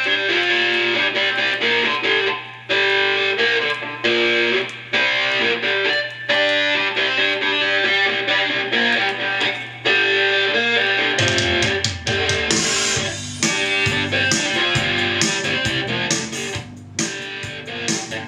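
Guitar-led music, with bass and drums coming in about eleven seconds in.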